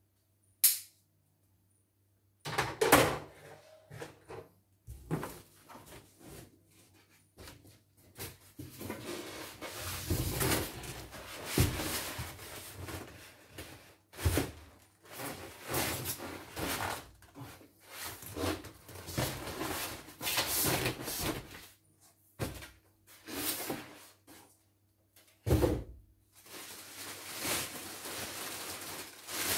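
Styrofoam packing blocks and plastic-wrapped embroidery-machine parts being handled: irregular knocks, thuds and rustling, with two heavier thumps, one about three seconds in and one near the end.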